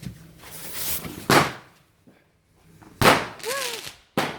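Fireworks going off: a hiss builds into a loud sharp bang about a second in, and a second loud bang with a crackling noisy tail follows about three seconds in.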